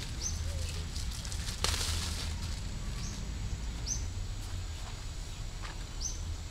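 Plastic bag and fabric rustling as a folded item is pulled out and handled, loudest in a short burst about two seconds in. A bird gives a short rising chirp four times, over a steady low rumble.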